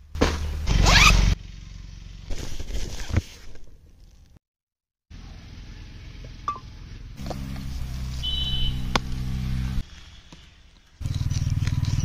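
A bag's zipper pulled open with a scratchy rising rasp about a second in, followed by scattered rustling and scraping, a steady low droning hum later on and a loud low buzzing near the end.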